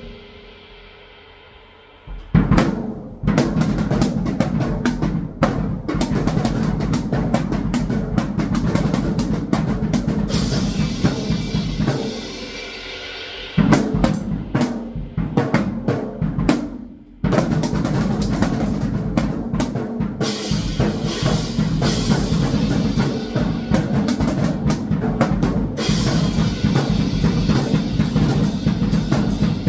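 Drum kit played in time with music, with snare, bass drum and cymbal hits and rolls. It drops to a quieter passage for the first two seconds, then comes back in; it dips again about halfway through.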